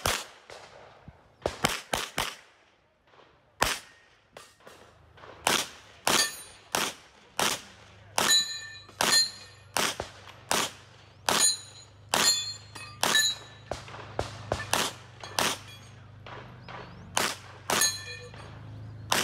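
Series of gunshots, about twenty, roughly one every half second to a second with a few short pauses, many followed by the brief ringing ping of struck steel targets.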